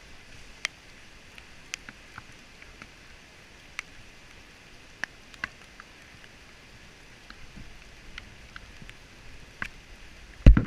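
Airsoft fire, heard as scattered single sharp cracks at irregular intervals over a low hiss, with a loud thump on the microphone at the very end.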